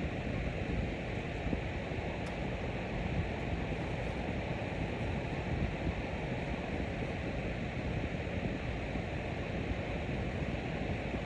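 Electric fan running steadily, an even rush of air that does not change in level.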